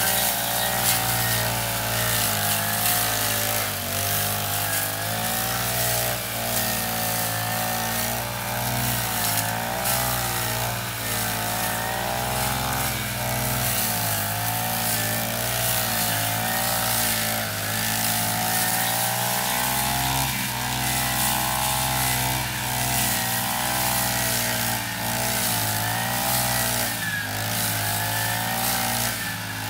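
Petrol brush cutter's small engine running continuously while cutting long grass and weeds, its pitch rising and falling every second or two as the throttle and load change.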